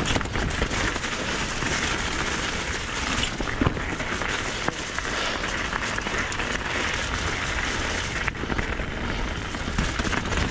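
Mountain bike riding down a wet, rocky track: tyres rolling and splashing through mud, loose stones and standing water, with the bike rattling and a few sharp knocks over rocks.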